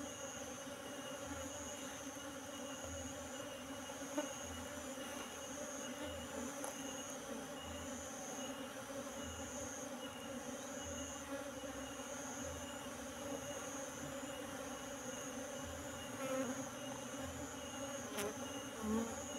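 A large colony of Asian honey bees (Apis cerana) buzzing steadily as the swarm is shaken off cardboard into a wooden hive box. A couple of brief handling rustles are heard near the end.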